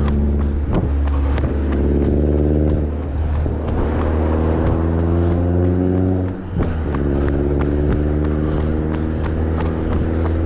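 A bus's diesel engine running close by. It holds steady, climbs in pitch for a couple of seconds, dips briefly about six seconds in, then runs steady again at a lower pitch. Repeated short thumps sound through it.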